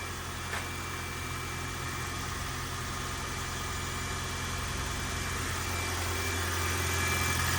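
A 2020 Toyota Corolla hybrid's high-mileage (481,000 miles) 1.8-litre four-cylinder engine idling steadily while it warms up, growing slightly louder toward the end.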